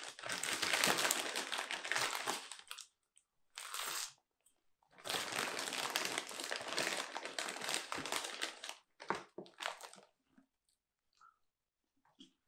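Snack bag crinkling and rustling as a hand rummages inside it for popcorn, in two long stretches with a short burst between and a few short bursts just before the end.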